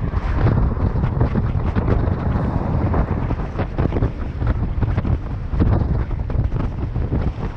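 Wind buffeting the microphone as a Scott E-Genius electric mountain bike rides fast over rough trail, with a constant rumble and frequent quick knocks and rattles from the bike over the bumps.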